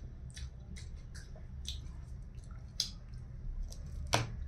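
A person eating by hand, wet mouth clicks and smacks while chewing, a string of short sharp clicks with the loudest about four seconds in as a mouthful of mustard greens goes in. A steady low hum sits underneath.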